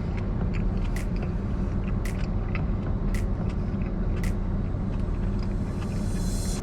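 A steady low rumble with a light click about once a second. A hiss rises near the end.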